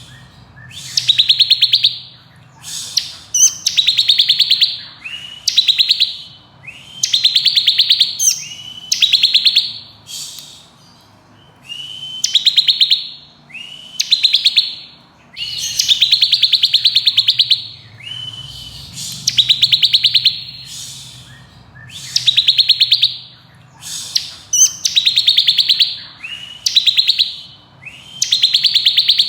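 Bar-winged prinia (ciblek kristal) singing its fast drilling trill ('ngebren'): short, rapidly pulsed high trills, each under a second, repeated about every one to two seconds, over a faint low hum.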